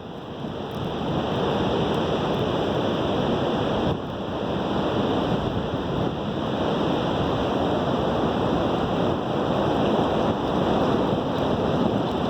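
Blizzard wind blowing hard and steadily, buffeting the microphone, with a short lull about four seconds in.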